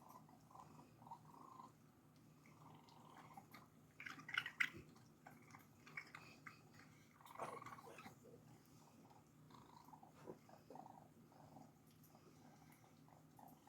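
Raccoon kits squeaking and chirping: faint little calls throughout, with a louder burst of squeals about four seconds in and another about seven seconds in.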